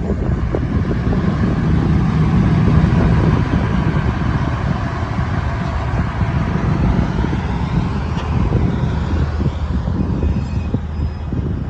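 Liebherr R946 long-reach excavator's diesel engine running steadily, a little louder about two to three seconds in.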